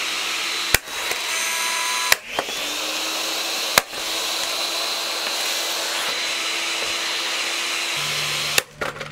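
Osterizer 14-speed blender's motor running at speed with no jar on it: a steady whir with a high whine, broken by a few sharp knocks in the first four seconds. The whir stops near the end, right after another sharp knock.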